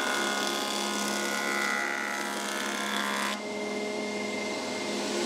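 Combination planer-thicknesser running, its cutter block surface-planing a wooden board fed across the bed. The cutting sound changes abruptly about three and a half seconds in, the hiss dropping away.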